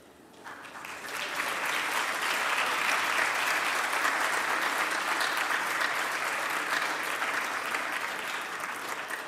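Audience applauding: the clapping builds over the first second or so, holds steady, and begins to fade near the end.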